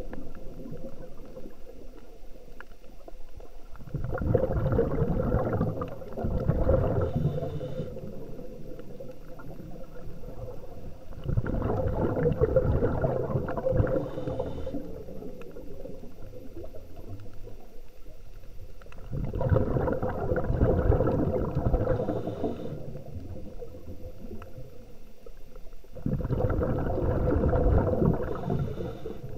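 Scuba diver breathing through a regulator, heard underwater: four bursts of exhaled bubbles gurgling, each about three seconds long and seven to eight seconds apart, with quieter stretches between.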